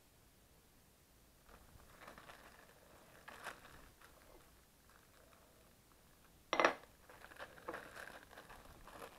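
Light handling noises: rustling and small clicks, with one sharp knock or clack about six and a half seconds in, then more light clicks.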